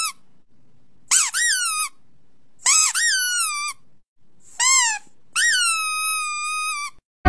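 A golden retriever puppy giving a series of high-pitched whining cries, each rising and then sliding down in pitch, the last one held longest.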